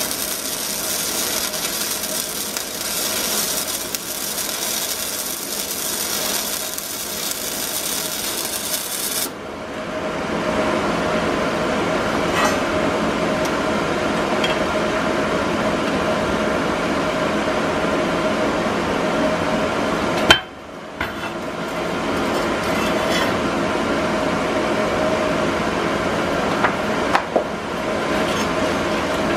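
Electric arc welding on a metal go-kart frame part: the arc's dense crackling hiss runs for about nine seconds, then cuts off. After that comes a steady shop hum with a few light knocks of metal being handled.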